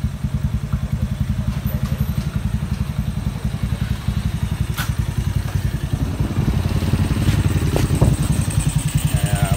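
Single-cylinder four-stroke engine of an underbone motorcycle, freshly built with a 54 mm bore kit and racing cam, idling with a rapid, even beat; it runs a little louder from about six seconds in.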